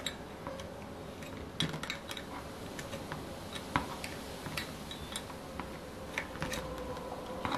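Small open-end wrench clicking and clinking against the metal exhaust header fitting of an O.S. FF-240 Pegasus model engine as the header is unscrewed: a few light, scattered metallic clicks over a faint steady hum.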